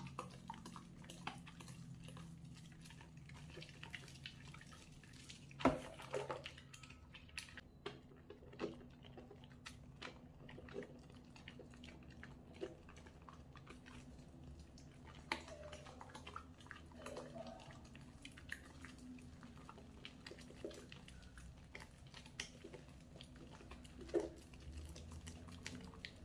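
A bar of soap being lathered wet: soft squishing and crackling foam with scattered small clicks and ticks, a sharper click about six seconds in and another near the end.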